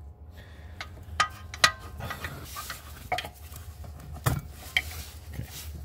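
Scattered clicks and light rattling of a plastic electrical connector being worked loose by hand, as the rear brake pad wear sensor plug is pried up at its tab and twisted apart. The two sharpest clicks come about a second and a half in and about four seconds in, over a steady low hum.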